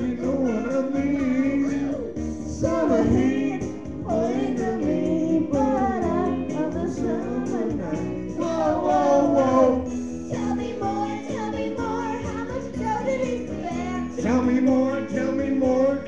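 Karaoke singing into a microphone over a backing track, the voice carrying a melody without a break.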